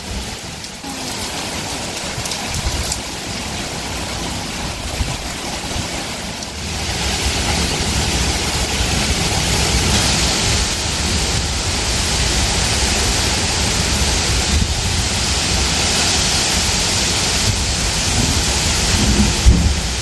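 Heavy thunderstorm rain pouring onto pavement and trees, with a low rumbling underneath. The downpour grows louder about a third of the way in and stays heavy.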